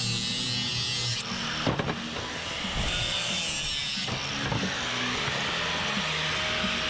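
A power saw cutting through scrap brass and steel plumbing fittings, its motor running steadily with a hissing cut. There are a few sharp knocks about two seconds in and again around four and a half seconds.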